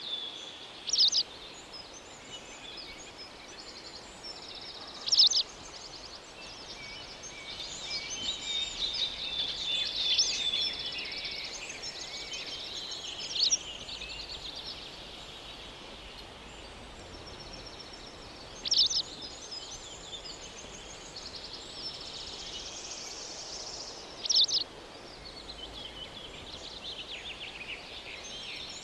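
Several birds chirping and trilling, with a short, loud call every few seconds over a faint steady background hiss.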